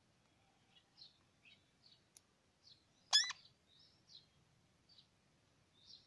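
A parakeet gives one loud, short call about three seconds in, over faint high chirps that repeat every half second or so.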